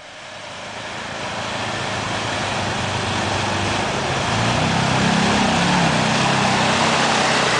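KYMCO MXU 500 quad's single-cylinder engine running as the ATV ploughs through a flooded stream, with water splashing and surging around its wheels. The sound grows louder as it approaches, the engine note coming through more clearly about halfway through.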